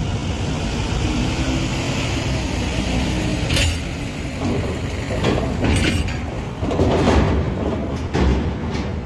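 Trucks' diesel engines running as they drive slowly onto a ferry over its steel loading ramp, with several sudden loud clanks in the second half.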